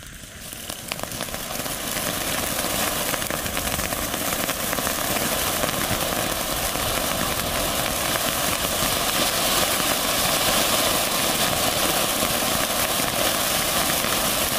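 Ground fountain firework spraying sparks: a steady hiss dense with fine crackling. It builds up over the first couple of seconds, then holds.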